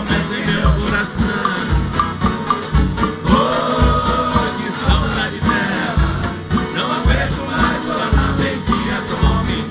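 Live Brazilian country (caipira) music played by a folk orchestra, with a steady beat of about two strokes a second and some singing.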